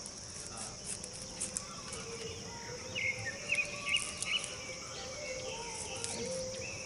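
Steady high-pitched drone of insects such as crickets, with a run of short bird chirps about three to four and a half seconds in.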